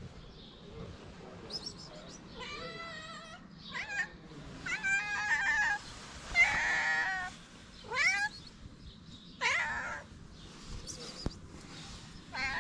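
A ginger-and-white stray cat meowing loudly and repeatedly, about seven calls that bend up and down in pitch, begging for food.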